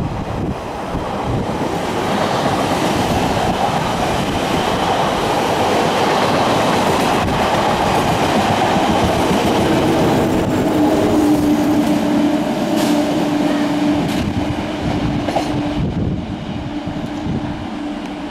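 SNCF BB 27300-class electric locomotive approaching at the head of a double-deck commuter train: a steady rumble of wheels on rails that grows louder over the first couple of seconds. A steady hum joins about ten seconds in, and a few sharp clicks come near the end.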